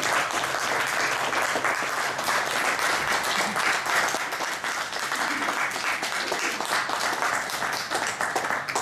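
Audience applauding, many hands clapping steadily, slowly dying down toward the end.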